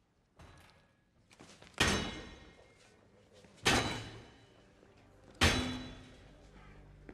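Three heavy metallic blows about two seconds apart, each ringing and fading, from a crowbar being swung against a wall-mounted metal restroom sign to knock it down. A softer knock and a few light clatters come before the first blow.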